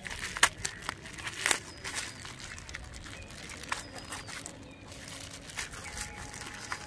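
Plastic bubble wrap crinkling and crackling as hands pull a pouch of it open and slide a phone out. The crackles are irregular and sharp, and loudest in the first two seconds.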